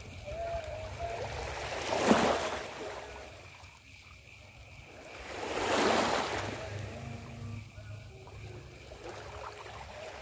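Small waves washing onto the shore twice, each swelling and fading over about a second and a half, with a steady low rumble beneath.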